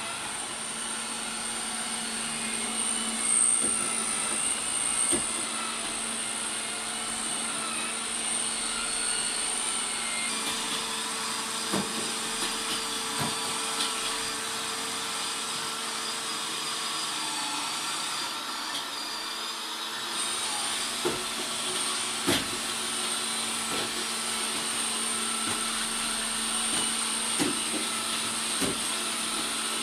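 Robot vacuum cleaner running: a steady motor hum with a high-pitched whine, and short knocks now and then.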